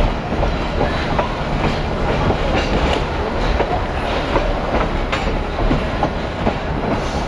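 Railway passenger car rolling along the track: a steady rumble with irregular wheel clicks and clacks over the rails.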